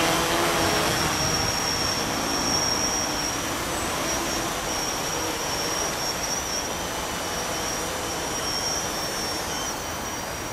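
Multirotor octocopter hovering under load with a payload slung beneath it: a steady whir of its eight propellers with a thin high whine, growing slightly fainter over the seconds.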